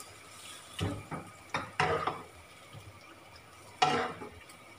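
Wooden spatula stirring braising pork in a wok of soy sauce and pineapple juice: a few short, irregular wet slops and scrapes against the pan.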